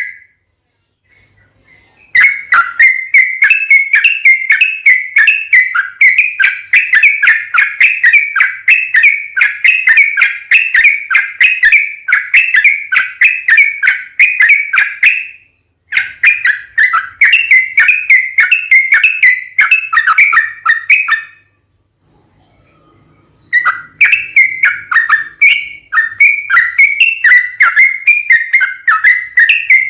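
Yellow-vented bulbul (trucukan) song: long runs of rapid, repeated whistled chattering notes, broken by short pauses about two seconds in, around the middle, and about two-thirds of the way through.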